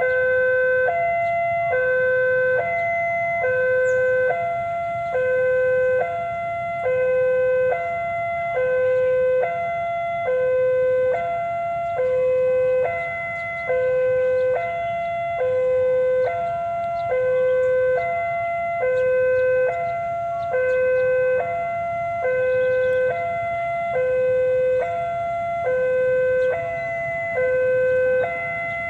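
Railway level-crossing warning alarm sounding a steady hi-lo pattern of two alternating tones, each about a second long, signalling an approaching train. A low rumble lies underneath.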